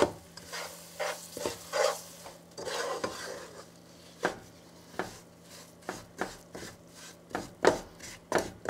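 Wooden spoon stirring and scraping crumbly halva paste (toasted whole wheat flour in oil and butter) around a nonstick pot, in a series of short, irregular strokes.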